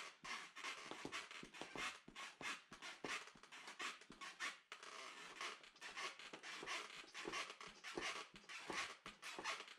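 Two-handled fleshing knife pushed along a coyote hide stretched over a PVC fleshing beam, scraping flesh and membrane off the skin between the eyes and ears: a quiet, fast, uneven run of short rasping scrapes.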